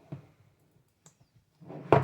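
A cardboard board-game box being handled: a few faint clicks, then a sharp knock near the end.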